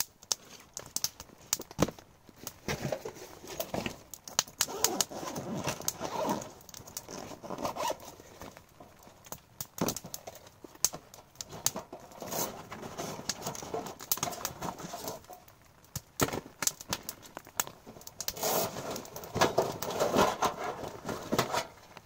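Camping gear being handled: rustling and crinkling with many scattered clicks and knocks, in uneven bursts.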